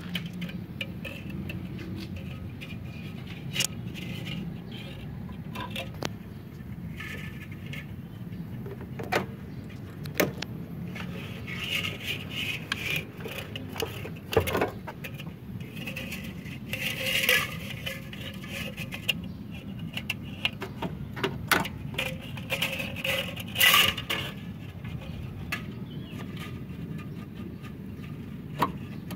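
Irregular small metallic clicks, taps and short rattles as welding wire is threaded from its spool into a MIG welder's wire feeder and the feeder's rollers and tension arm are handled, over a steady low hum.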